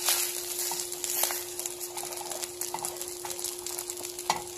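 Egg and leftover fried rice sizzling in a hot frying pan, with a few light clicks of a utensil in the pan and one sharper click near the end. A steady hum runs underneath.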